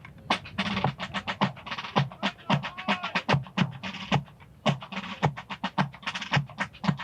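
Drums playing a quick, regular cadence, several sharp strokes a second.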